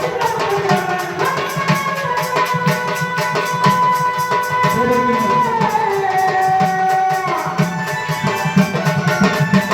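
Devotional music: tabla playing a steady rhythm under a long held melody note that slides down to a lower note about halfway through.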